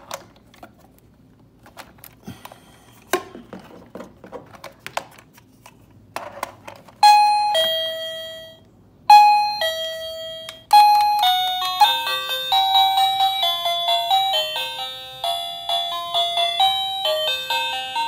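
Plug-in wireless doorbell chime receiver: a few clicks, then about seven seconds in a loud electronic two-note ding-dong, high then lower, that rings on and fades. The ding-dong plays twice, and then a faster electronic chime melody plays on.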